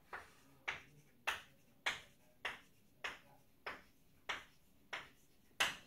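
Chalk striking a blackboard in short dashes: about ten evenly spaced strokes, a little under two a second, while a dashed line is drawn. The last stroke is the loudest.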